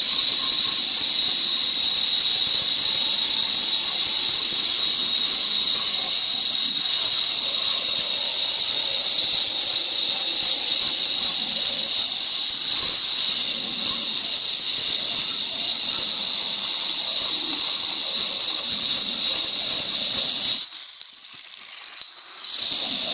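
Handheld electric saw cutting a black granite slab: a loud, steady high-pitched whine. Near the end the cutting sound drops away for about two seconds, then comes back.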